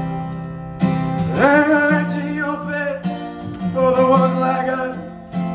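Strummed acoustic guitar with a man singing a slow folk ballad into a microphone, performed live.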